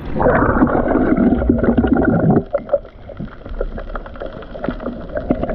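Water splashing and sloshing against a kayak, heavy for the first two seconds or so, then lighter splashes and small knocks.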